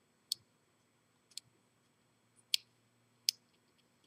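Four small, sharp metallic clicks, irregularly spaced about a second apart, from a U-change mortise lock cylinder being taken apart, with a 1/2-inch deep well socket used to push out the plug.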